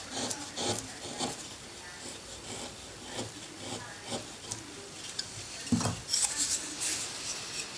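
A hand carving chisel paring thin shavings from a wooden butterfly wing: a run of short, scratchy cutting strokes, several a second. About six seconds in there is a soft knock, followed by brighter strokes as the hand moves over the carving.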